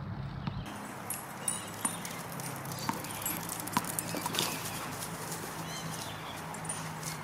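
Dogs moving about on pavement: irregular clicks and taps, mostly in the first half, over a steady low hum.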